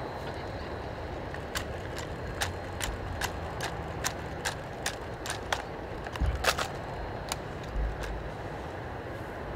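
Sharp clicks and light knocks of rifles being handled in silent drill, coming in a fairly even run of about two or three a second, with a louder cluster of knocks just past the middle. A steady low outdoor rumble lies underneath.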